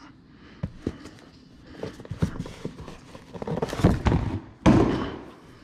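Cardboard being handled: a few light knocks and taps, then a boxed product sliding against and being pulled out of a cardboard shipping box, with the scraping and rustling loudest about four to five seconds in.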